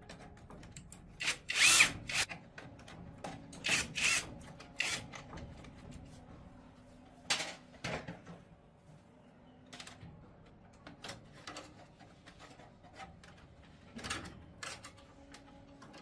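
Workshop tool work: irregular clicks, knocks and short scrapes, the loudest cluster just under two seconds in, with quieter taps scattered through the rest.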